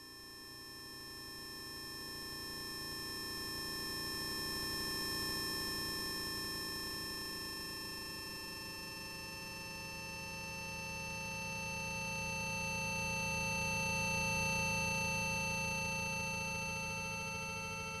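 Layered electronic sine tones at many pitches forming a steady drone, tones derived from the charged muon's mean lifetime (frequency = 1/time) transposed down by octaves. It swells in over the first few seconds, eases slightly, then swells again to its loudest past the middle.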